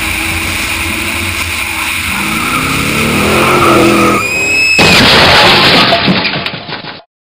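Motorcycle engine running at highway speed, its pitch rising as it accelerates, then a brief high tyre squeal about four seconds in, followed at once by a sudden loud harsh rush of noise for about two seconds that cuts off abruptly into silence.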